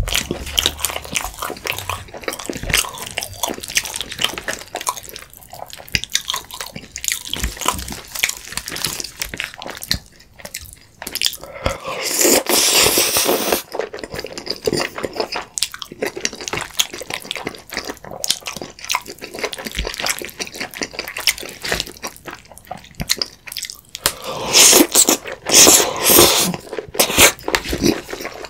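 Close-miked eating sounds: wet chewing with many small mouth clicks, and two louder slurps of creamy pasta noodles, about twelve seconds in and again about twenty-five seconds in.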